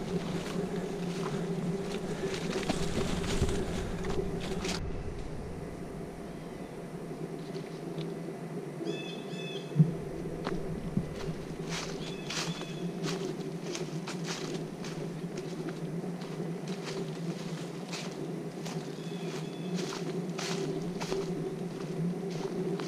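Footsteps of a hiker climbing a woodland trail, heard as scattered crunches and knocks, with one sharper knock about ten seconds in. A steady low hum runs underneath, and a few short high chirps come through three times.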